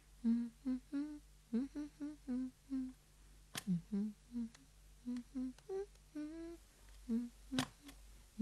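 A woman humming a tune in short, rhythmic notes, with two sharp clicks, one about three and a half seconds in and one about seven and a half seconds in.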